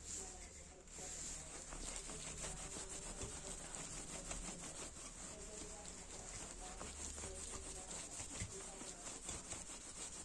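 A cloth rubbing back and forth over the flat metal face of an amplifier heatsink, wiping off a black smear; a dense, scratchy rubbing that starts about a second in.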